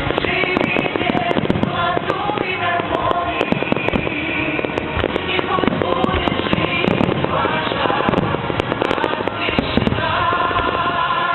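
Fireworks display: rapid, irregular crackling and banging of fireworks going off over music.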